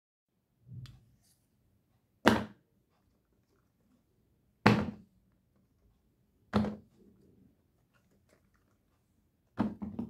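Silicone pop-it fidget toys set down one at a time onto a wooden tabletop, each landing with a soft flat thud: a faint one near the start, then four sharper ones about two seconds apart, the last a quick double.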